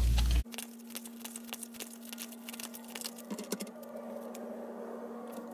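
A deck of tarot cards being shuffled by hand: a faint, quick patter of small card clicks that thins out after about four seconds, over a faint steady hum.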